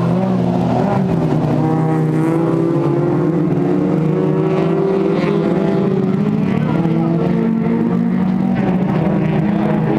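Folkrace cars' engines running hard at high revs as the pack races round the circuit, their pitch rising and falling slowly.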